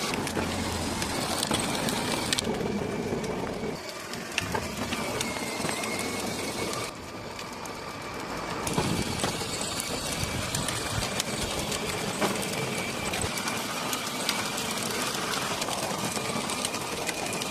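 Small electric motor of a toy ride-on bike running with a steady whirr and a constant high whine, briefly easing off a couple of times.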